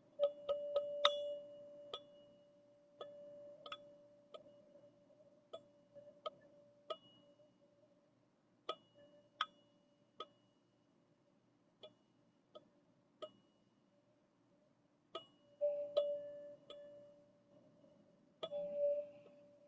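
Teal ZenTube, a chakra-balancing sound-healing instrument, played with light, irregularly spaced strikes. Each strike rings into one sustained mid-pitched tone with a faint high overtone. The strikes come in quick clusters about a second in, near the end, and shortly before.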